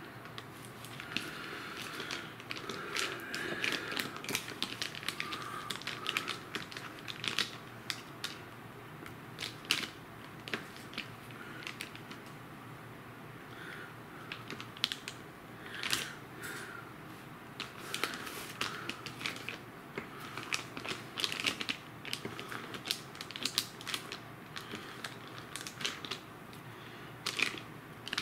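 Knife cutting a block of Velveeta processed cheese into cubes, the blade tapping and clicking on a cutting board at an uneven pace, sometimes several taps a second, with short pauses between.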